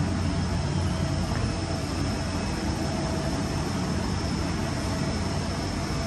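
Running CNC machine-tool equipment: a steady low hum and a faint high whine over an even hiss, without change.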